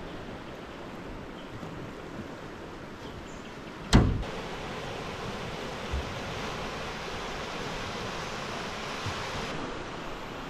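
Steady rush of a fast-flowing, flood-swollen muddy river. A single sharp thump about four seconds in stands out above it.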